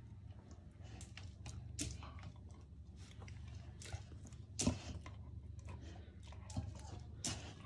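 A puppy biting and chomping at a rubber chew toy held out by hand, teeth clicking and snapping on the rubber at irregular moments; the sharpest snap comes a little past halfway.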